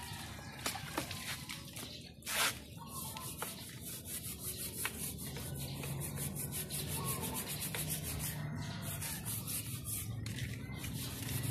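Hand scrubbing a scooter's rear body and wheel with a cloth: quick, repeated rubbing strokes, with one short, loud rushing noise about two seconds in.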